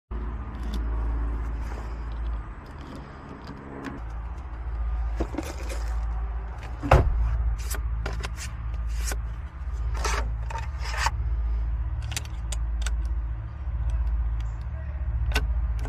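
Metallic clicks, jingles and short scrapes of keys being handled and worked in a lock, scattered irregularly, with the loudest click about seven seconds in. A steady low vehicle hum runs underneath.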